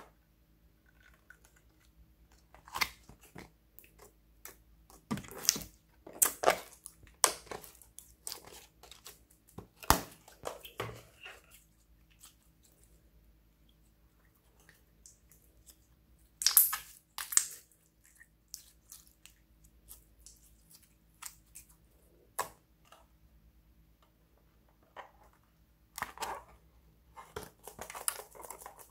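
Sticky slime being kneaded, squeezed and stretched by hand, giving irregular wet clicks, pops and crackles, some in quick clusters, with quieter stretches between.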